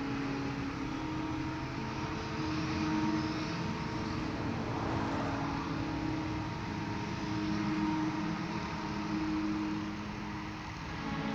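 Street traffic: a steady vehicle engine hum, with a car passing by about five seconds in.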